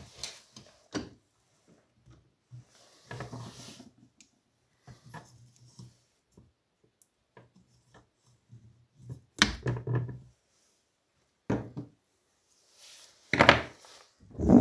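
Hand tools and metal parts knocking and scraping as the carburetor is worked off a Partner 410 chainsaw. There are scattered handling sounds and a few sharp knocks, the loudest about halfway through and near the end.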